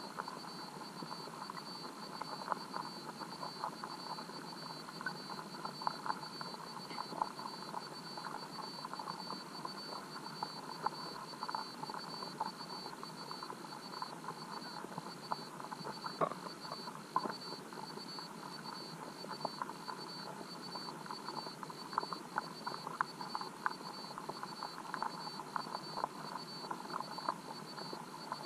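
Underwater river ambience heard through a waterproof camera housing: a muffled, steady rushing hiss with many small irregular clicks and crackles. A thin, steady high-pitched whine runs through it and starts to stutter with short, regular gaps about halfway through.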